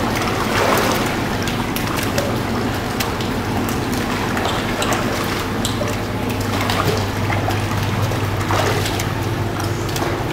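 Choppy swimming-pool water sloshing and splashing, with scattered small splashes from children's legs at the pool edge, over a steady low hum.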